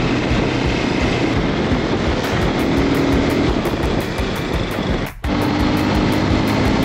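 Lifan 250 dirt bike engine running while riding, under heavy wind rush on the on-board camera microphone. The sound breaks off briefly about five seconds in, then resumes with a steady engine drone.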